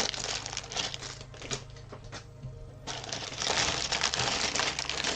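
Plastic Lego parts bags being opened and crinkled, with small plastic bricks clicking and rattling as they are handled and sorted; the handling eases off for about a second around two seconds in, then picks up again.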